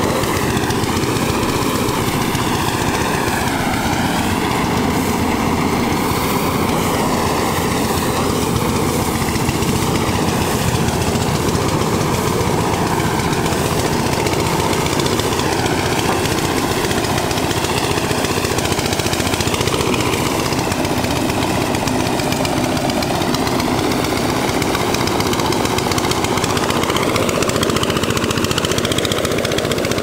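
Engine-driven rice thresher running steadily while rice stalks are fed into its drum: a loud, continuous mechanical drone whose pitch wavers slightly up and down.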